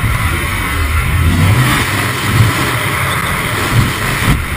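Loud rush of wind and aircraft engine noise at the open door of a skydiving plane, with heavy low buffeting of the wind on the microphone.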